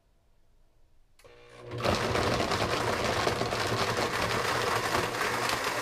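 Blendtec Designer 725 blender motor starting about a second in, coming on at low speed and ramping up quickly to full speed, then running loud and steady as it blends a milkshake mix.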